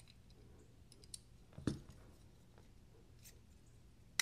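A few light clicks from a McNees Mac 2 folding knife being worked by hand on its new phosphor bronze pivot washers, with a sharper snap right at the end.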